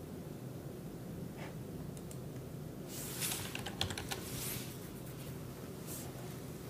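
Typing on a computer keyboard: a quick run of keystrokes about three seconds in and a single tap near the end, over a steady low hum.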